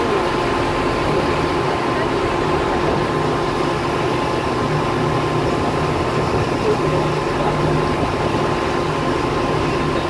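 A boat's engine running with a steady hum under an even rush of wind and water noise.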